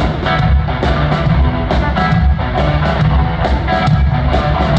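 Blues-rock band playing live in an arena: electric guitar over bass and a steady rock drum beat, loud and bass-heavy.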